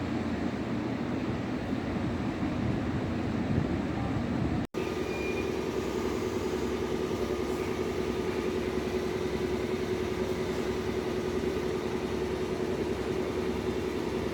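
Steady rumble of a moving vehicle with a constant low hum, broken by a brief cut about five seconds in.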